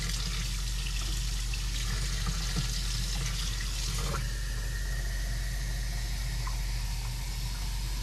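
Tap water running steadily from a kitchen faucet into the plastic water reservoir of a Keurig K-Express coffee maker, over a low steady hum.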